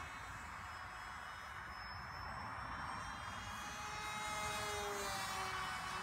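Electric motors of a small FPV aircraft whining in flight overhead, the pitch sliding slowly up and down with throttle and distance, over wind rumble on the microphone.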